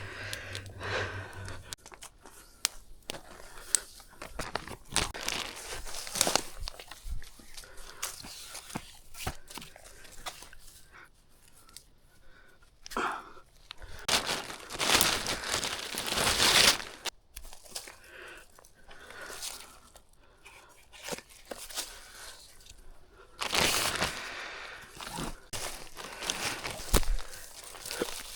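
Dry twigs and forest-floor debris crunching, snapping and tearing in irregular bursts, with louder stretches midway and near the end.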